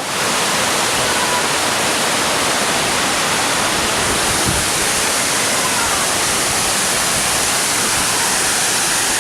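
Waterfall close by: a loud, steady rush of falling water, even and unbroken.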